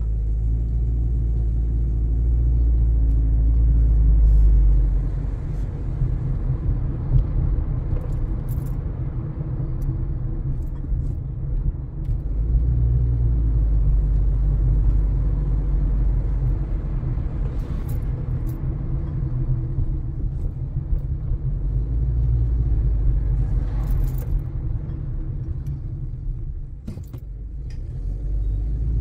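Car on the move: a steady low road rumble, with a few faint, short clicks through it.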